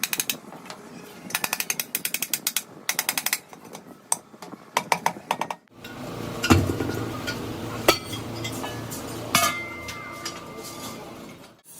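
Bursts of very rapid mechanical hammering on metal, typical of a pneumatic hammer, in the first few seconds. Later come a few separate sharp blows on metal, the last leaving a brief ringing tone.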